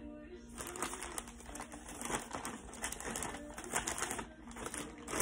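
Thin plastic shopping bag rustling and crinkling as it is handled, a quick irregular run of crackles and taps.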